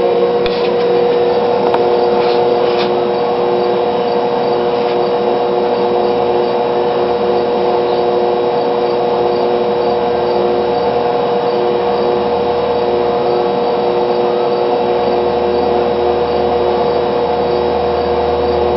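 Battery charger humming steadily under load as it drives current through a salt-water electrolysis jar, a constant buzz made of several steady tones. A few faint ticks in the first few seconds.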